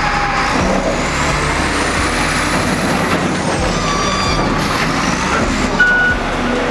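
XCMG wheel loader's diesel engine running as the machine works, a dense, steady machinery noise. A short high tone sounds briefly near the end.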